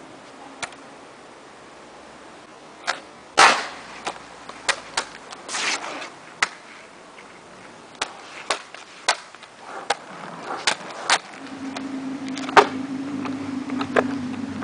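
Skateboard deck and wheels knocking and clacking on a hard court surface during freestyle tricks: a series of sharp knocks, the loudest about three and a half seconds in and again near the end. A steady low hum comes in about eleven seconds in.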